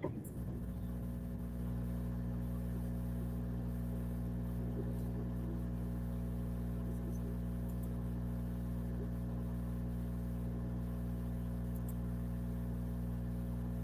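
A steady low hum or buzz with many overtones, slightly louder after about a second and a half and then unchanging.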